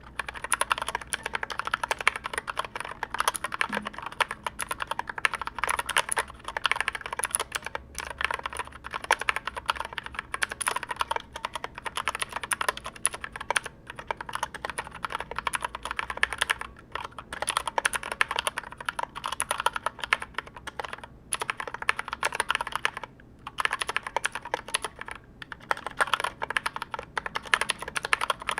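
Fast continuous typing on a mechanical keyboard built with 64 different switches, a steel plate, a 3D-printed PLA case and SA-profile ABS keycaps, giving a rapid mixed clatter of keystrokes with a few brief pauses.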